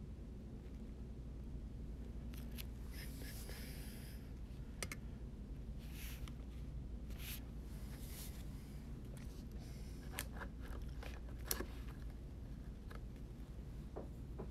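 Quiet room with a low steady hum, faint scattered rustling and a few small clicks.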